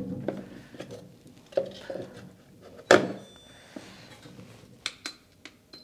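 Plastic essential-oil diffuser being handled on a tray table: its cover is turned and set back in place with a run of light knocks and clicks. The sharpest knock comes about three seconds in, and a few small clicks follow near the end.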